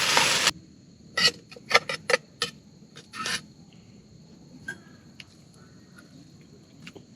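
Frying sizzle from a camp stove cuts off abruptly about half a second in. Then a metal utensil scrapes and clinks against the pan of fried rice about seven times in quick succession, followed by a few faint clicks.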